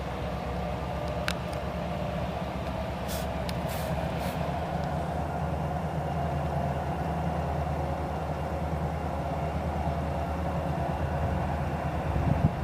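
EMD two-stroke diesel locomotives, two SD40-2s and an SD9, running with a steady low engine drone while switching cars. A few short hisses of air come about three to four seconds in.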